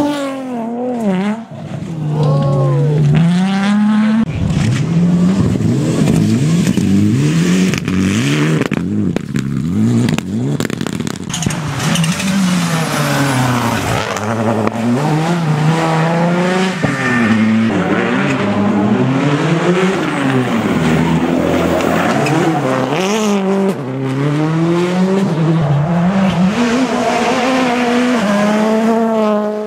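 Rally car engines revving hard, their pitch climbing and dropping again and again through gear changes and lifts off the throttle.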